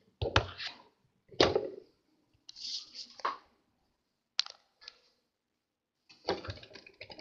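Handling noise around plastic toy fire trucks: scattered knocks and sharp clicks with short gaps between, a brief scrape about three seconds in, and a quick run of clicks near the end.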